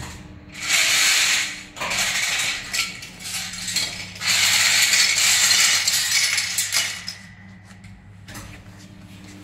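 Deflashed parts clattering out of a cryogenic deflashing machine's perforated stainless drum into a plastic basket, in three long rushes, the longest a little past the middle. Under it the machine's motor hums steadily.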